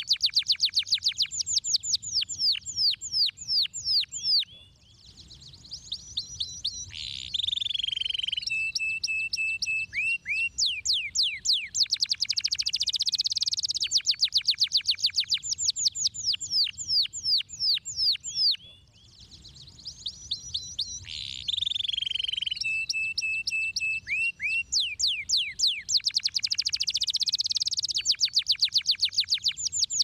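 Domestic canary singing: long trills of fast repeated sweeping notes, broken by lower, steadier rolling notes, with two short pauses.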